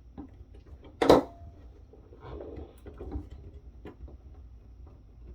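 A snap-on clock-battery module (ST Timekeeper SNAPHAT) being forced off a circuit board with a tool: one loud, sharp snap about a second in, then small clicks and scraping of the tool against the board and chip.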